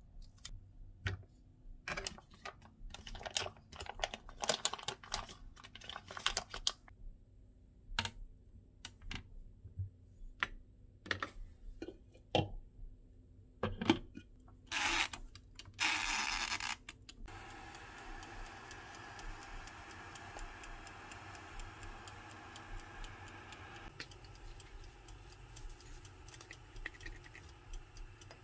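Kitchen scissors snipping and clicking through a coiled blood sausage, with tongs clinking. About halfway there is a knock and two short hissing bursts, then a small electric steamer runs with a steady hum while its wind-up dial timer ticks quickly.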